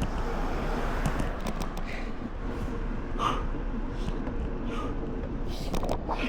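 Bicycle riding noise: steady wind on the action camera's microphone and tyre-on-road rumble, with scattered small clicks and rattles from the bike.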